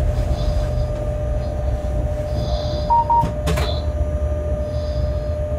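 Shunting locomotive running, heard inside its cab: a steady low rumble with a constant whine and hissy swells every couple of seconds. Some sharp clicks come a little past halfway, and a short beep sounds about three seconds in.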